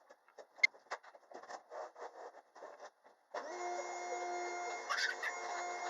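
Scattered light clicks and rustling with one sharp click, then a vacuum cleaner switches on about three and a half seconds in and runs steadily with a whine.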